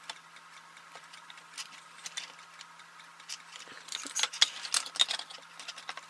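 Light, irregular clicks and taps from handling a small circuit board, its wires and a soldering iron during soldering, thickest about four to five and a half seconds in, over a faint steady hum.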